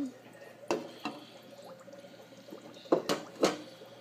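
Water dripping and splashing in a goldfish tank: several sharp drips, two about a second in and three close together near the end, over a faint steady hum.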